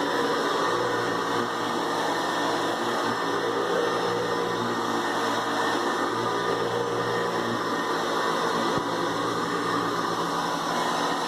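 Hoover Convertible Elite upright vacuum cleaner running steadily, its motor and fan giving an even hum at one constant pitch.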